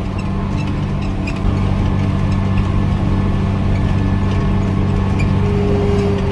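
Tractor engine running steadily under load while mowing hay, heard from inside the cab. It gets a little louder about a second and a half in.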